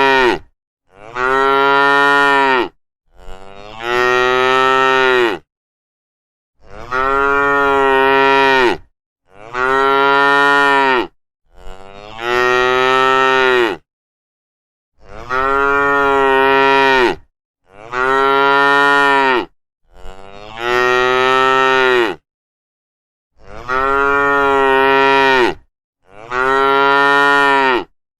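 Cows mooing over and over: about ten long moos, each around two seconds, with short gaps between them. A few of the moos begin with a brief lower note before the full call.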